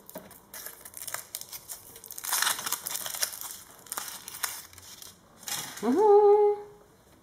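Aluminium foil wrapper of a chocolate egg crinkling as fingers peel it off, in bursts that are loudest in the middle. About six seconds in, a voice hums a short 'mmm' that rises and then holds.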